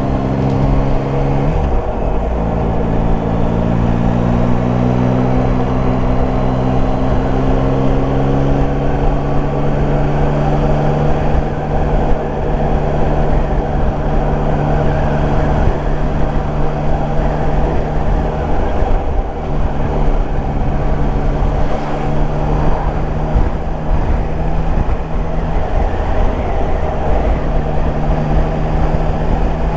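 Yamaha Tracer 9 GT's 890 cc inline three-cylinder engine running at road speed, heard from the rider's helmet camera with steady wind rush. Its pitch steps and glides a few times as the throttle and gears change.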